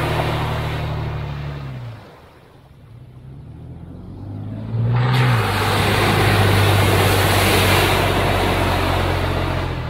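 Off-road 4x4 engine running under load, its pitch dropping as it fades about two seconds in. About five seconds in an engine revs up and the sound cuts abruptly to a loud engine pulling steadily under a rushing noise.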